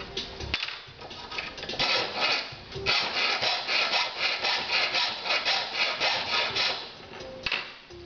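Hand file scraping back and forth across a metal rod clamped in a bench vise, in quick, even strokes that start about two seconds in and stop shortly before the end.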